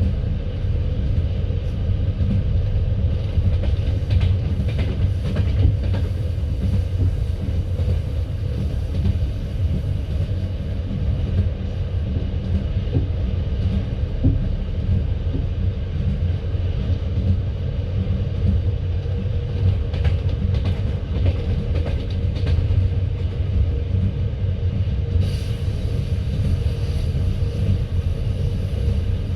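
Passenger train coach running on the line, heard from inside: a steady rumble of wheels on rail with occasional clacks. A brighter hiss joins near the end.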